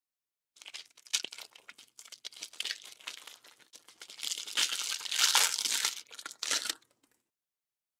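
Plastic wrapper of a pack of baseball trading cards being torn open and crinkled in the hands, loudest about halfway through.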